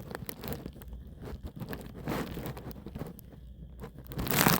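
Irregular small clicks and rustling, with a louder rustle near the end.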